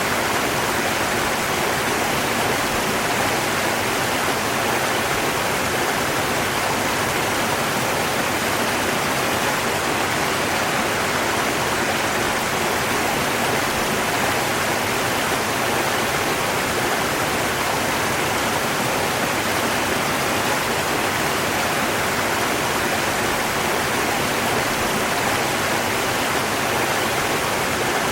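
River water rushing, an even, unbroken noise with no changes.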